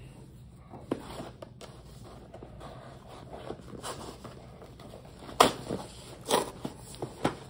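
Knife blade scraping and slitting the packing tape on a small cardboard box, a low scratchy rasp, then the box being handled, with a few sharp knocks and taps of cardboard in the last two seconds.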